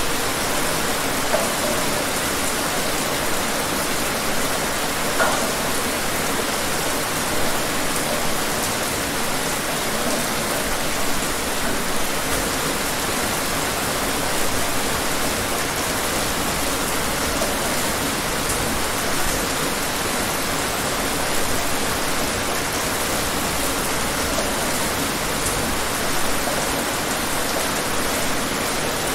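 Steady rain falling: a dense, even hiss, with now and then a slightly louder drop.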